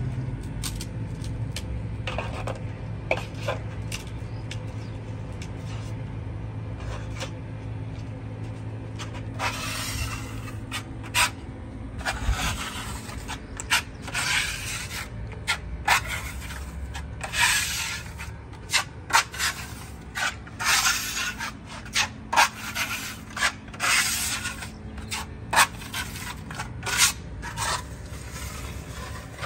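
Metal putty knife scraping over a cement-plastered wall in repeated strokes, spreading white putty. The strokes are faint at first and get louder and more frequent about a third of the way in.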